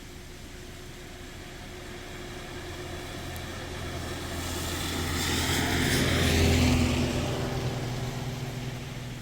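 A motor vehicle driving past: engine hum and tyre noise grow louder, peak about six and a half seconds in, then fade away.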